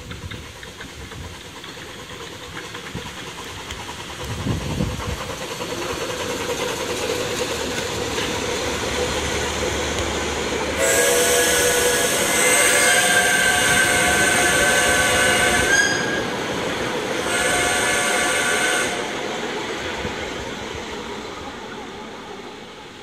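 Miniature 381 mm-gauge Krauss steam locomotive running past with its passenger train, the running noise growing louder and then fading away. It sounds its steam whistle twice: a long blast about eleven seconds in and a shorter one a second or so after it ends.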